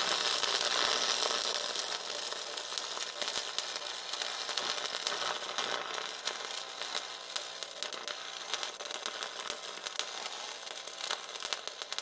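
Stick welding arc running a bead on scrap steel: a steady crackling sizzle, a little louder in the first couple of seconds.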